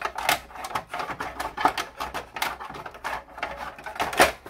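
Black plastic cooling shroud of a Dell PowerEdge T320 server being fitted into the open metal chassis: a quick, irregular clatter of plastic clicks, knocks and scrapes.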